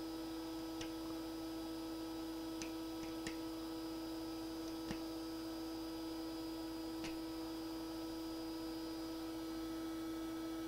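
Scattered sharp clicks of pliers and hard plastic as a 3D-printed cube's stuck raft is picked and snapped at, about half a dozen ticks over a steady hum.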